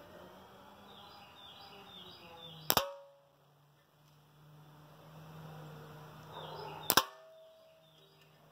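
Two shots from a Dan Wesson .177 pellet revolver, about four seconds apart, each a short sharp crack.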